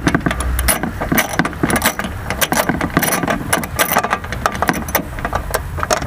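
Irregular metallic clicks and rattles, several a second, from a hand-turned socket driver and its bolt as the bolt is unscrewed.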